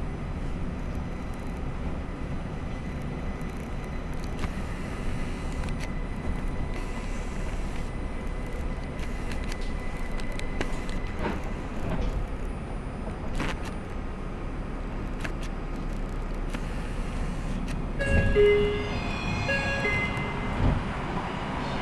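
Inside a Linimo 100-series maglev car: steady low running rumble with a faint high tone as the car slows into the station. About 18 s in, the door chime plays a short series of notes with a thump as the doors open, and a second thump follows near the end.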